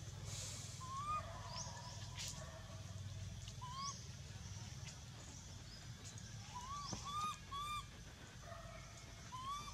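Baby long-tailed macaque giving short, faint crying coos, each a quick rise and fall in pitch. There is one call about a second in, another near four seconds, a quick run of three around seven seconds, and a last one near the end.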